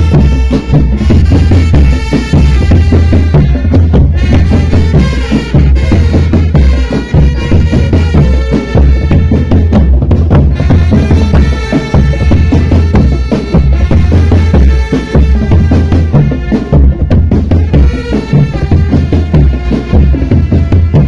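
Drum band playing: a heavy, steady drum beat with a melody carried by melodic instruments over it.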